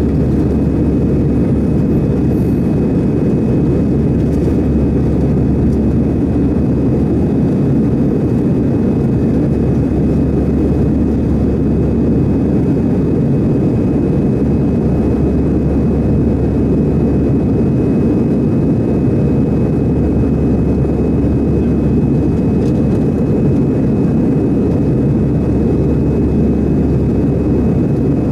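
Steady cabin noise inside an Airbus A319 in flight: a deep, even rumble from the jet engines and the airflow over the fuselage, with a faint high tone held steady above it.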